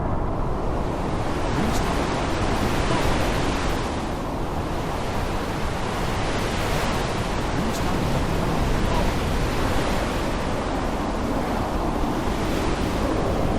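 Rainstorm: heavy rain with wind, a dense steady hiss whose upper part swells and eases every few seconds.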